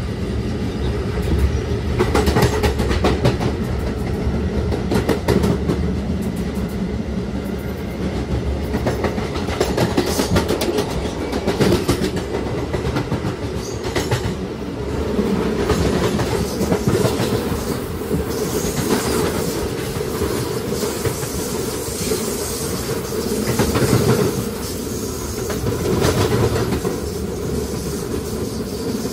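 Kawasaki-built R211 subway car with Alstom OptONIX IGBT-VVVF traction running at speed: a steady low rumble of wheels on rail, with frequent clacks as the wheels cross rail joints.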